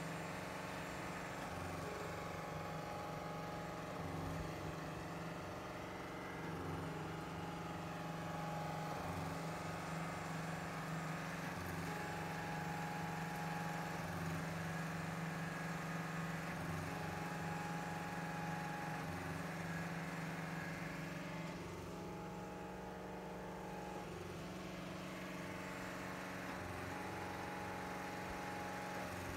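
Trailer-mounted concrete pump's engine running steadily, its note shifting at a regular beat about every two and a half seconds.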